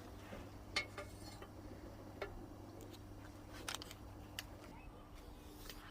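Several light, separate clinks and taps of a utensil against a cast iron pan, over a faint steady hum.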